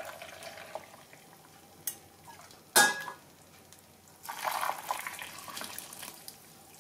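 Hot salted water poured from a pot over cucumbers packed for pickling, heard as a splashing pour in two stretches, with a sharp ringing clink of the vessel just before the middle.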